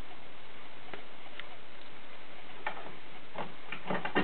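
A few sparse, irregular clicks and taps of a screwdriver driving the screws of a door strike plate, with a small cluster of clicks near the end.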